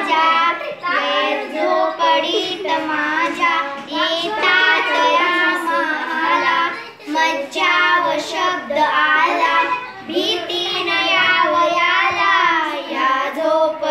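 Two young girls singing a Marathi song together, unaccompanied, in long held phrases with brief breaths between lines.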